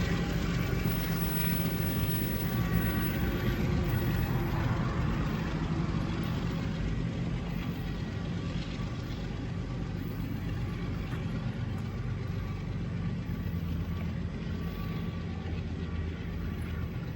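Freight train's diesel locomotive engine running steadily with a low hum, slowly fading.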